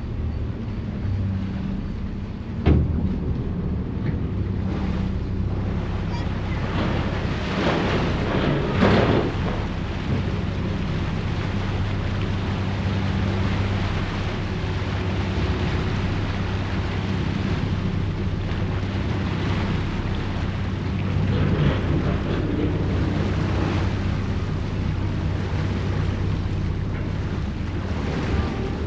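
Ferry engine running with a steady low hum, under the rushing churn of propeller wash and wind buffeting the microphone, which swell louder at times. A single thump about three seconds in.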